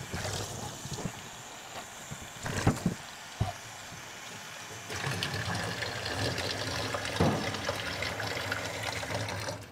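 Hot tap water running through an HRV heat exchanger core in a stainless steel utility sink as it is rinsed clean, with a few knocks from handling the core. About five seconds in, the water grows louder and fuller, then falls away near the end.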